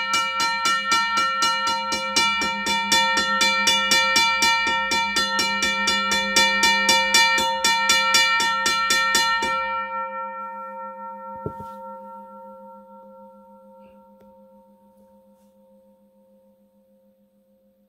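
Western Cullen Hayes 12-inch railroad crossing bell with a Safetran gong, struck by hand from the side in a rapid run of strikes, about five a second. About ten seconds in the strikes stop and the gong rings on, resonant, fading slowly to a low hum.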